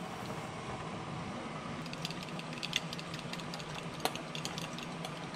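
Metal fork whisking beaten egg and pecorino in a ceramic bowl, giving light, irregular clicks against the bowl from about two seconds in, over a steady low hum.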